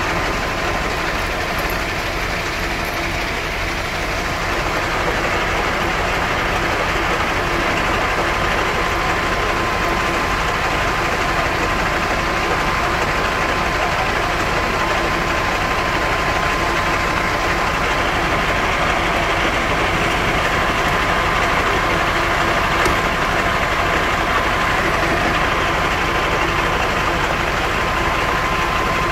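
Fire engine's engine running steadily, with a thin steady high tone through it.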